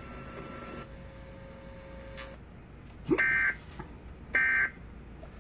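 Emergency Alert System SAME header tones from a weather radio: after about three seconds of low hum, two short bursts of high digital data tones about a second apart mark the start of a new alert.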